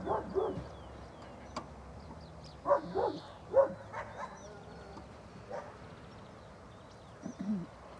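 A German shepherd-type dog barking in short bursts, several quick barks at a time, at a decoy in a bite suit, as in the search-and-bark part of a ring trial. The last barks near the end are lower.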